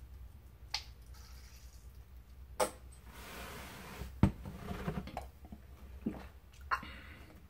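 Plastic squeeze bottle of mustard squirting into a mouth, with wet squishing and a few sharp clicks, then one louder thump a little after four seconds in.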